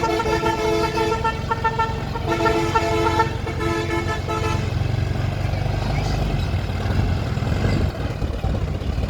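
Vehicle horn held in two long blasts, with a short break about two seconds in, stopping about halfway through. A low engine rumble runs underneath and carries on after the horn stops.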